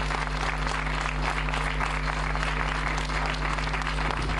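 Audience applauding: dense, steady clapping from a crowd, with a faint low electrical hum underneath.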